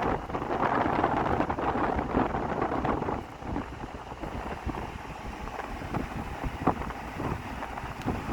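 Wind buffeting the microphone, a rough rushing noise with gusty low thumps, louder for about the first three seconds and then easing.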